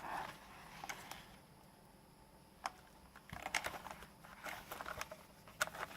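Light, scattered clicks and taps of a plastic VR headset being handled and turned over, in short clusters with pauses between.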